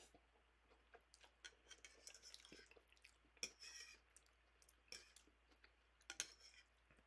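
Faint eating sounds: chewing and slurping of instant noodles, with small clicks of a fork against the bowl. Two louder slurps or scrapes come about halfway and near the end.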